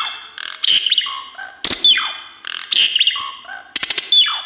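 Asian pied starling (jalak suren) singing, repeating the same loud phrase of chattering notes and a whistle that slides down in pitch, about every two seconds.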